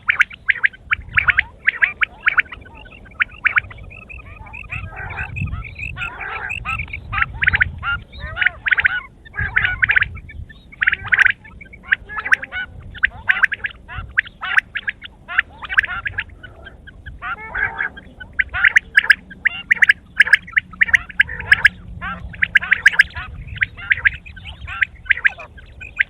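Quail calling over and over in fast runs of short, sharp notes, broken by a few brief pauses.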